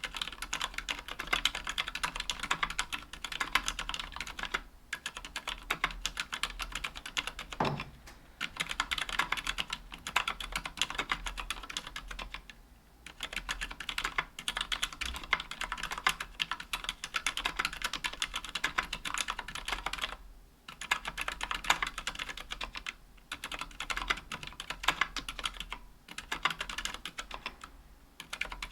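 Fast, continuous typing on a KBDfans Tofu 60% keyboard with an aluminum case and plate, Healios silent linear switches and GMK Jamon keycaps. Dense runs of keystrokes break off in short pauses every few seconds.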